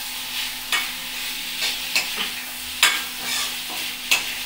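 A metal spoon stirring and scraping gobi manchurian (fried cauliflower in sauce) around a metal kadai on a gas stove at high flame, with a steady sizzle. Sharp scrapes and knocks of the spoon against the pan come at irregular intervals, roughly every half second.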